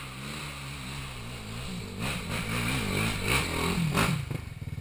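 Enduro motorcycle engine revving hard under load as the bike climbs a steep dirt slope, its pitch rising and falling with the throttle. It gets louder as the bike comes closer and is loudest about four seconds in, near the top of the climb.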